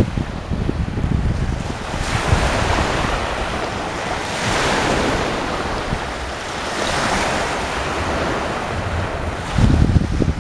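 Sea waves breaking and washing ashore in surges every two to three seconds, with wind buffeting the microphone, heaviest near the end.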